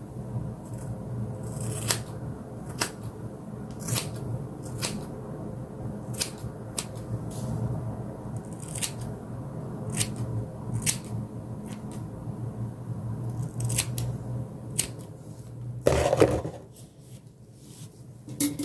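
Scissors snipping through long hair as she trims her own fringe: short, sharp snips at an irregular pace of about one a second. Near the end comes a louder bump and rustle.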